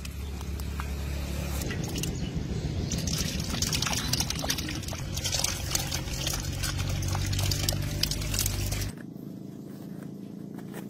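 Wet splashing and sloshing of live eels wriggling in shallow water as they are tipped from a hollowed pumpkin into a basin, full of small crackling clicks. It stops abruptly about nine seconds in.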